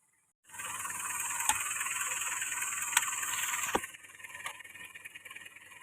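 Off-road pickup driving over a rough, muddy track: steady engine and tyre noise with rattling and three sharp knocks, dropping quieter a little before four seconds in.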